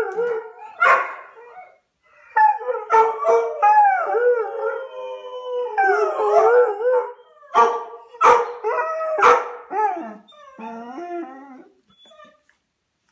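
Airedale terrier howling: long wavering howls broken by several short, sharp barks, dropping into lower, quieter yowls near the end and stopping about twelve seconds in.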